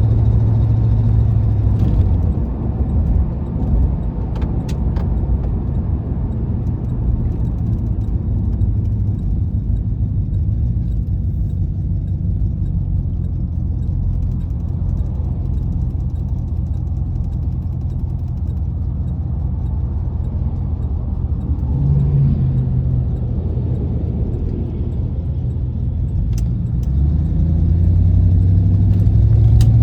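1996 Impala SS's 5.7-litre LT1 V8 and exhaust running under way: louder on the throttle at first, easing off about two seconds in to a steadier, quieter drone, then pulling harder again near the end. The owner suspects an exhaust leak.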